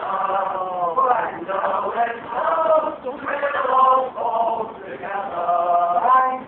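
Men's voices singing a slow, chant-like song with long held notes.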